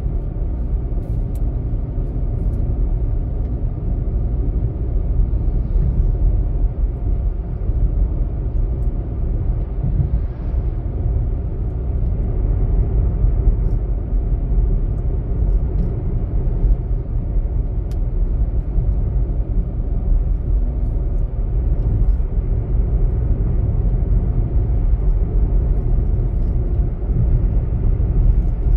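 Steady low rumble of a vehicle travelling at speed along a paved road: engine, tyre and wind noise with no change through the stretch.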